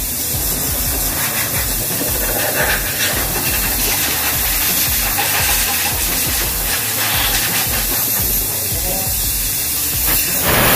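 Self-service pressure-washer wand spraying water onto a scooter: a steady hiss of spray, a little louder near the end.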